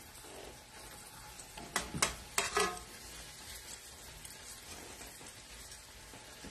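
Floured ribeye steaks frying in hot oil in a stainless-steel pan, a steady sizzle. A few sharp metal clacks of tongs against the pan come about two seconds in.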